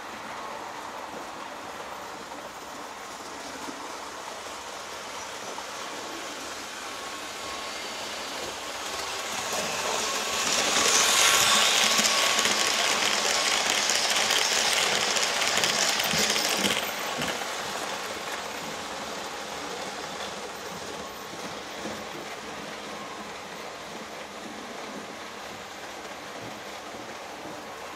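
Märklin H0 model train, an ÖBB class 1118 electric locomotive (Märklin 3369, fitted with a high-performance motor and ball bearings) pulling eight TEE coaches on metal track, running past. Its running noise swells about eight seconds in, is loudest for about six seconds as the train goes by, then drops sharply back to a fainter steady running sound from farther along the layout.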